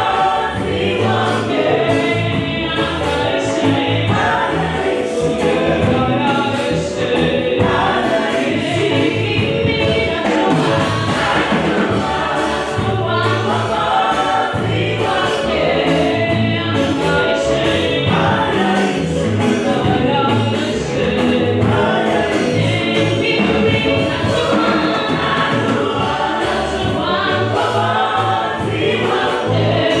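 Gospel choir singing through microphones over a steady beat.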